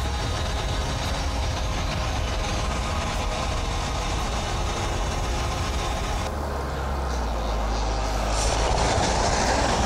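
Wind rushing over an action camera's microphone and road noise from a road bike riding along a road, heard as a steady low rumble and hiss. A passing vehicle's noise swells near the end.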